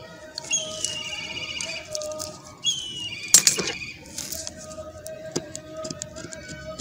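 Utility knife blade scraping the heads off matchsticks onto paper in short scratches, with one loud scrape about halfway through. High trilled, falling bird calls sound twice in the background.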